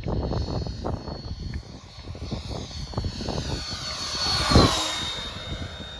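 Freewing Stinger 90 RC jet's electric ducted fan whining as it flies past, growing louder and then dropping in pitch as it passes about four and a half seconds in. Wind buffets the microphone throughout.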